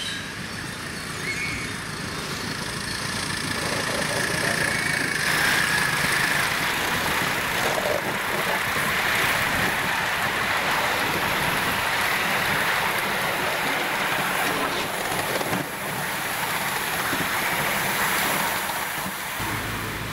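A 5-inch gauge live-steam model of a Great Western Railway Hall class locomotive running with riders aboard: the steady running noise of its steam exhaust and wheels on the track. The sound changes abruptly about five seconds in and again near the end.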